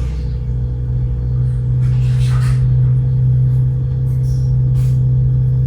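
Steady low hum, loud and unchanging, with a couple of faint brief clicks or rustles.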